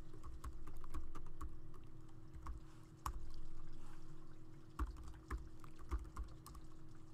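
Typing on a computer keyboard: irregular keystroke clicks with a few harder taps, over a faint steady hum.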